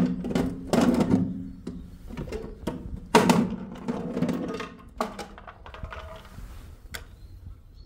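Thumps and knocks as a small wooden box is handled and its hinged lid is opened, with sharp clicks about five and seven seconds in.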